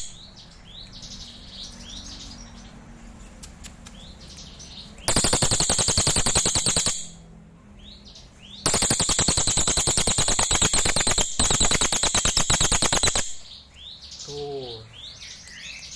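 Crested jay (cililin) giving loud, rapid machine-gun-like rattling calls. Two long rattles come about five seconds in (about two seconds long) and about nine seconds in (about four and a half seconds long), with softer chirps and whistles between them and a short run of falling notes near the end.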